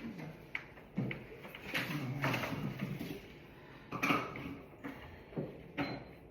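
Rummaging through cupboards: a run of knocks and clatters as things are moved and shifted, with sharper knocks about a second in, about four seconds in and twice near the end.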